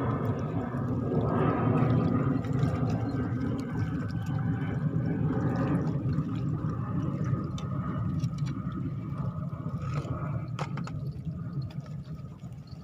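Steady low rumble of seaside ambience, fading out near the end.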